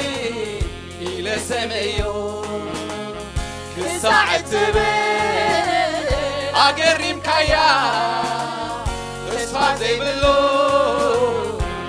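Church choir singing a Tigrinya gospel worship song with instrumental accompaniment: held bass notes and recurring drum hits.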